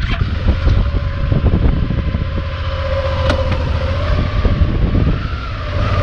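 Suzuki motorcycle engine running steadily under throttle, its pitch wavering slightly near the end, as the bike is worked out of soft sand where it is stuck.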